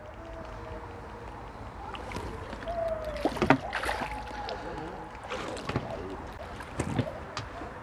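A hooked crucian carp splashing at the pond surface as it is played in on the line. The splashes come in short bursts, beginning about three seconds in, with the loudest just after that.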